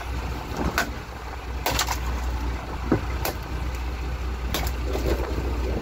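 About half a dozen sharp, irregular knocks and thuds from a freshly landed yellowfin tuna in a small boat's fish hold, as it is struck with a wooden club and beats against the hold, over a steady low hum.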